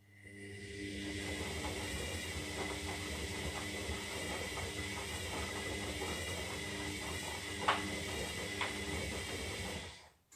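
Zanussi Lindo 300 washing machine's motor turning the drum in the wash phase: it spins up over about a second, runs steadily for about ten seconds with a motor whine and a light rattle from the tumbling load, with two sharper knocks near the end, then stops.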